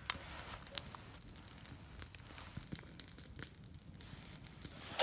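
Faint rustling with a few light clicks, the sharpest about a second in, from a spoon and stainless camping pots being handled.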